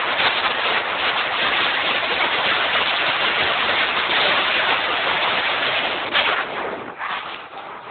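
Steady rush of road and wind noise inside a car travelling at highway speed. It drops noticeably in level about seven seconds in.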